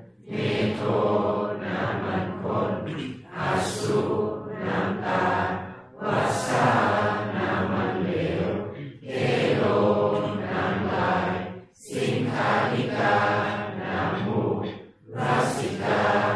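Theravada Buddhist morning chanting in Pali and Thai, voices reciting in a steady monotone in unison. Phrases run about three seconds each, with brief breath pauses between them.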